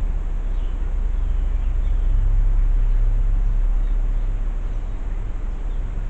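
Steady low rumble, swelling slightly about two seconds in, with a few faint bird chirps from outside over it.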